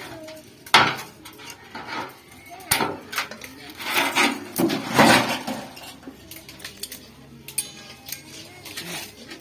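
Sheet metal from an old refrigerator clanking and knocking as it is worked by hand into the side of a pot: irregular metal strikes with a short ring, the sharpest about a second in and a cluster around four to five seconds in.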